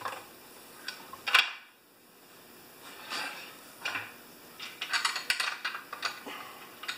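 Metal parts clinking and knocking as a chainsaw handlebar and its stainless steel screws are handled and fitted to the saw body, with a sharp knock about a second and a half in and a quick run of clicks near the end.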